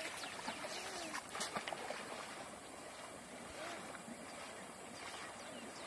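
Faint splashing and sloshing of legs wading through knee-deep river water.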